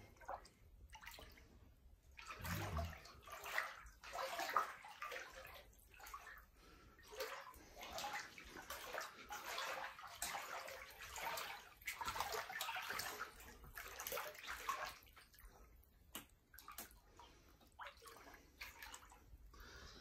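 Floodwater on a house floor sloshing and splashing in irregular bursts, as someone wades through it.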